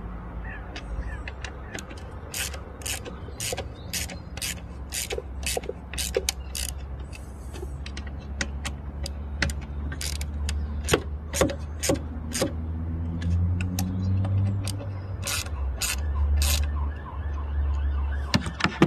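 A ratchet spanner clicking in runs of sharp, evenly spaced ticks, about two or three a second, as clips and fittings on a turbo intake pipe are tightened. A low steady rumble runs underneath.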